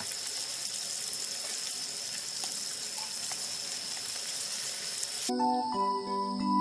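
Food sizzling in hot oil in a frying pan: a steady hiss with small pops. About five seconds in, it cuts off and calm instrumental music begins.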